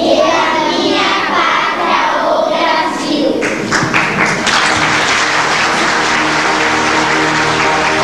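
Audience applause after a children's group song. The clapping grows dense and steady about three and a half seconds in, and music comes in faintly beneath it near the end.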